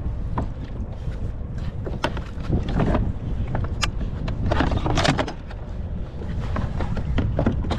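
Wind buffeting the microphone in a steady low rumble, with a scatter of sharp knocks and clatters as a plastic fish-measuring board and gear are handled on a plastic kayak.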